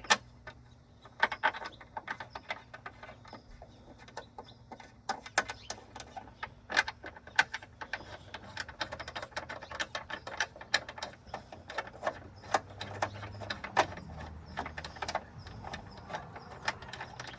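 Socket ratchet clicking in irregular runs as two bolts are threaded back in and snugged down, mixed with sharp clicks of metal tools and parts being handled.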